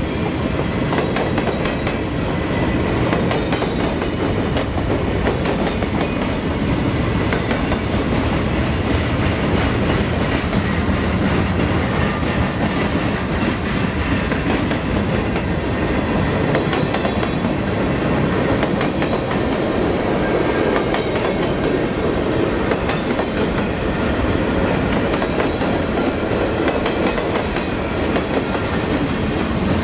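Cars of a long CSX mixed freight train (covered hoppers, boxcars and gondolas) rolling steadily past: a continuous rumble of steel wheels on rail with a clickety-clack over the rail joints.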